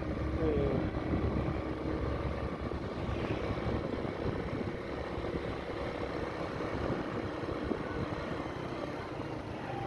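A vehicle driving along a street, its engine and road noise running steadily under gusty wind rumble on the microphone.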